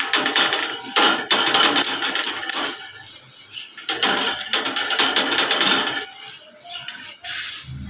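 Metal spatula scraping and knocking on an iron tawa as a roti is pressed and turned on it. The scraping comes in two stretches of a few seconds each and eases off near the end.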